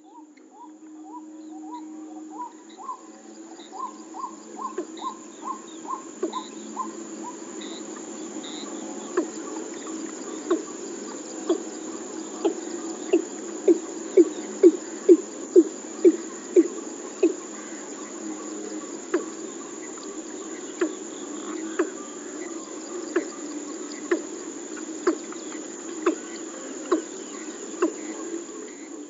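Male watercock calling. It starts with a run of higher, rising notes about two a second. Then comes a long series of deep hollow notes that quicken and grow louder to a peak about halfway through, then slow to about one a second.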